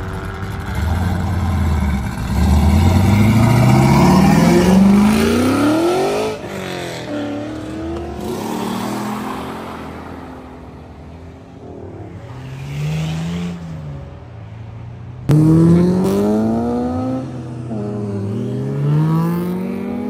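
A car engine pulls hard with a steadily rising pitch for about six seconds, then drops off. It is then revved up and down in short rises and falls, with a sudden loud burst of revs about fifteen seconds in.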